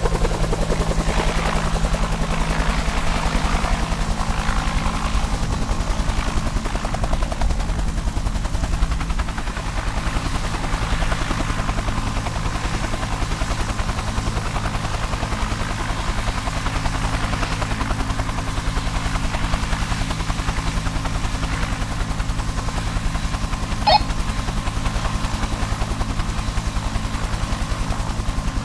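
Helicopter hovering, its rotor blades chopping steadily, with one short click near the end.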